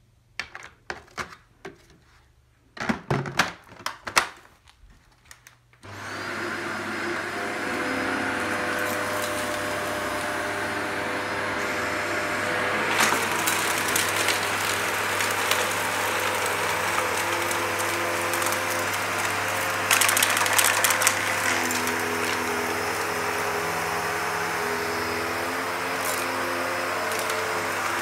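Shark Anti Hair Wrap Powered Lift-Away upright vacuum cleaner: a few clicks and knocks, then about six seconds in its motor starts and runs steadily as it vacuums sand off a rug. Twice, around the middle, a burst of crackling as grit rattles up through the floor head.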